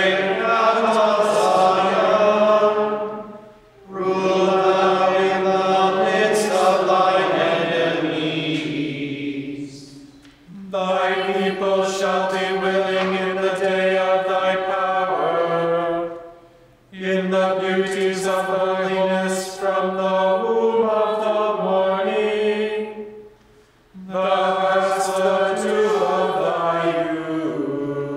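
Gregorian chant sung in unison, in phrases of about six to seven seconds, each ending in a short pause before the next begins.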